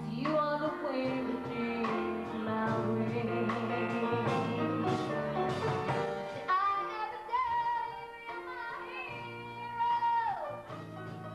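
A girl singing a solo into a microphone over instrumental accompaniment, her voice holding and sliding between long notes.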